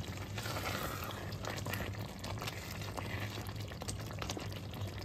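Thick tomato spaghetti sauce boiling in a skillet with spaghetti cooking in it: steady bubbling with many small pops, as a silicone spatula stirs through the pasta and sauce. A steady low hum runs underneath.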